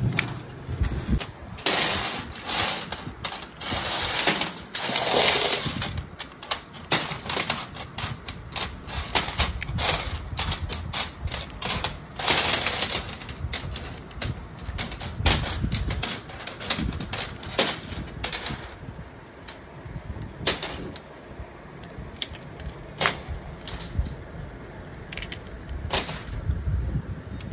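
Rapid, irregular clicking and clattering of small hard parts, with a louder rushing burst about four to six seconds in and another around twelve seconds.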